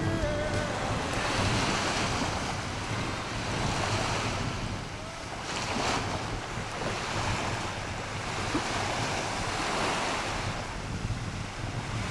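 Small sea waves lapping and washing up on a sandy beach, the wash swelling and easing every couple of seconds. Wind buffets the microphone with a low rumble.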